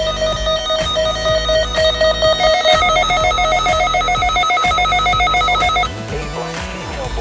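Electronic alert tone beeping in fast, even pulses, switching about two and a half seconds in to a higher two-tone pulsing pattern that cuts off suddenly near six seconds; a quieter, less regular sound follows.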